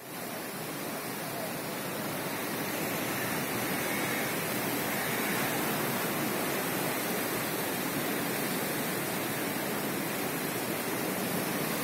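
The Cauvery river in heavy flood, around two lakh cubic feet per second of turbulent brown water rushing past in a steady, unbroken rush.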